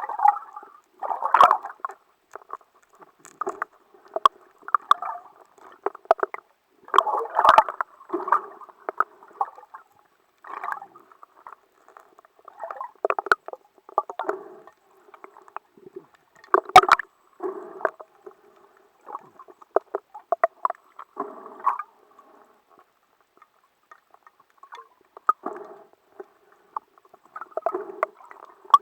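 Water sloshing and gurgling against a camera in irregular bursts, with a few sharp knocks.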